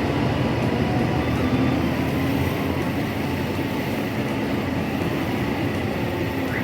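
Large diesel bus engine running close by, a steady low rumble whose note rises slightly about two seconds in, as the bus moves off from the terminal.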